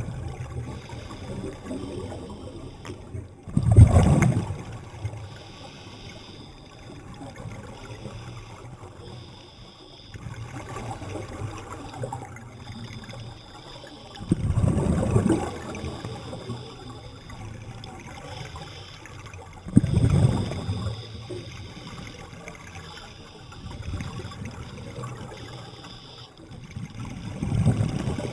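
Water, with a low rushing surge every four to five seconds over a steady watery hiss.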